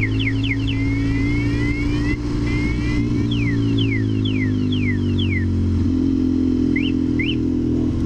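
Motorcycle alarm siren, set off with its panic button while riding, cycling through its tone patterns: quick falling sweeps about four a second, then rising sweeps, then slower falling sweeps, and two short chirps near the end. Under it, the BMW F800 ST's parallel-twin engine runs steadily.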